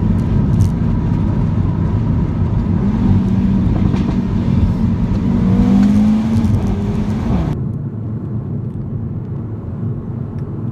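Audi RS3's turbocharged 2.5-litre five-cylinder engine heard from inside the cabin, pulling hard with its pitch rising for a few seconds, then falling away. About seven and a half seconds in, the sound cuts abruptly to a quieter, duller drone of engine and road noise.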